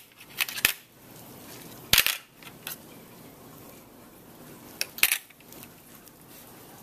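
Handling noises of a dissection on a stainless steel tray: a few sharp clicks and knocks of metal instruments and gloved hands. The loudest comes about two seconds in, with another pair around five seconds.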